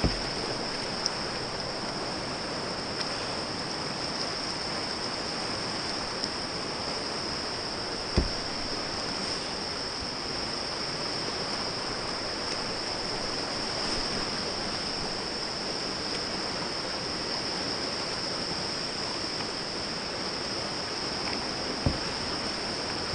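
Rough whitewater rushing around a kayak, a steady hissing roar with a constant high-pitched whine over it. A few short thuds cut through it, the loudest about eight seconds in and near the end.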